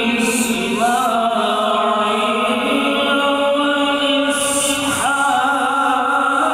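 A male qari reciting the Quran in the melodic tajweed style, drawing out long held notes with gliding ornaments. New phrases begin about a second in and again about five seconds in.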